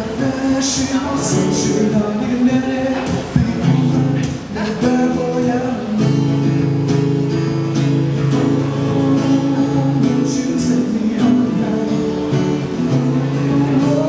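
Acoustic guitar strummed in steady chords, with a man singing at times, played live as a solo acoustic performance.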